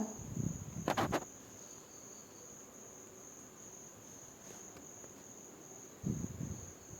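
A cricket's steady high-pitched trill, under a few quick clicks about a second in and a short soft knock near the end.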